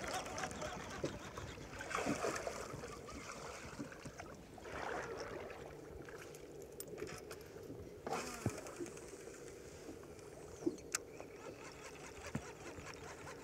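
Quiet water lapping around a fishing boat, with a few small clicks and knocks from a baitcasting reel and rod being handled, most of them near the end.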